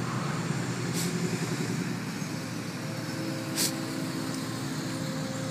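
Engines of a line of tow trucks running with a steady hum. Two short sharp clicks come about a second and three and a half seconds in.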